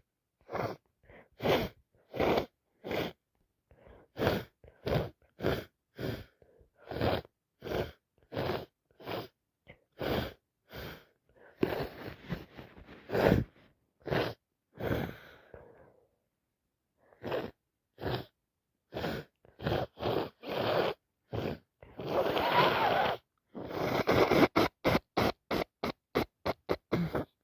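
A woman with a heavy head cold sneezing and sniffing over and over in short, sharp bursts, one every second or so. About 22 seconds in comes one longer, louder burst, then a quick run of rapid sniffs near the end.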